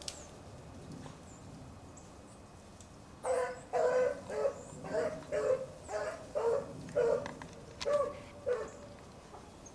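Rabbit-hunting dogs baying in a quick series of about a dozen barks, starting about three seconds in: the voice of dogs running a rabbit on its trail.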